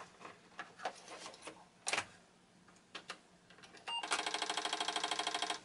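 Apple IIc's built-in 5.25-inch floppy drive: a few sharp clicks as a disk goes in and the drive is closed, then a short beep as the machine is reset. About four seconds in, the drive head starts rattling fast and evenly, about eleven knocks a second, as it recalibrates against its stop at the start of a disk boot.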